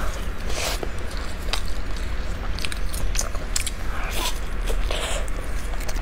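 A person biting into and chewing a pan-fried Chinese chive pocket (jiucai hezi), its fried crust crunching in many short, sharp crackles.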